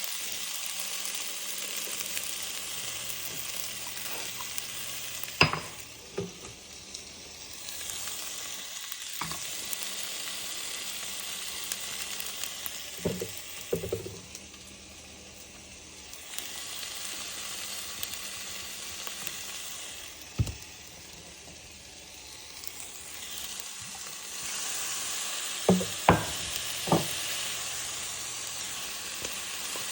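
Food sizzling as it fries in a pan, the hiss swelling and easing off in waves, with sharp clicks of a utensil striking the pan as it is stirred, several in quick succession near the end.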